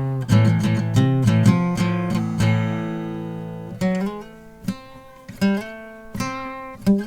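Acoustic guitar played into a shotgun condenser mic: quick strummed chords, then a chord left ringing and fading about two and a half seconds in, followed by sparser picked notes and short strums.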